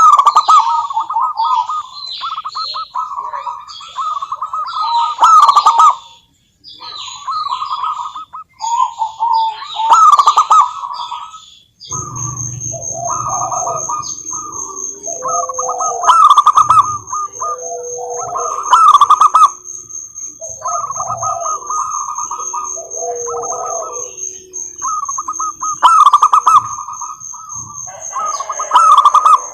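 Zebra doves (perkutut) cooing in repeated rapid trilled phrases, with higher twittering over them. About twelve seconds in, the recording changes: lower notes and a steady high whine join the cooing.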